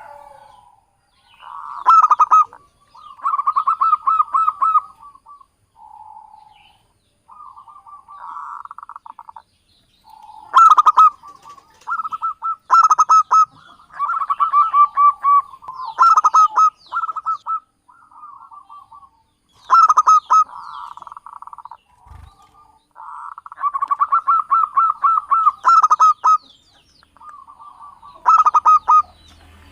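Zebra doves (perkutut) cooing: repeated phrases of rapid staccato notes, some loud and close, some fainter, with short pauses between phrases.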